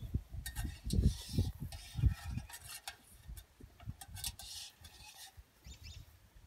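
Small metal ladle scraping and clinking inside a stainless steel pot while crawfish are scooped out, with scratchy bursts about a second in and again about four seconds in. Irregular low thuds run under it.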